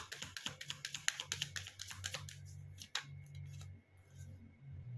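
A deck of cartomancy cards being shuffled by hand: a quick run of soft card flicks and clicks for about two seconds, then a few single card snaps.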